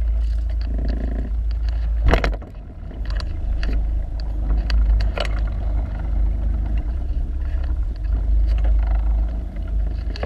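Steady low rumble on a sport-fishing boat, the boat's engine and wind on the microphone, with scattered sharp knocks and clicks on deck; the loudest knock comes about two seconds in.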